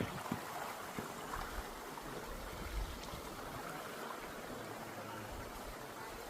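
River water flowing, a steady rushing sound, with a few short low thumps.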